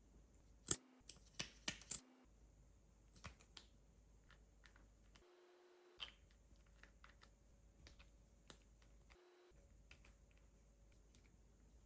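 Sticky clicks and small pops from clear slime being pressed and smeared with lipstick. About five sharper clicks come in the first two seconds, then only sparse faint ones.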